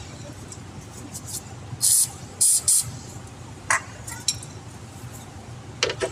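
Three short hissing spurts of spray about two to three seconds in, followed by a few light metallic clinks of hand tools.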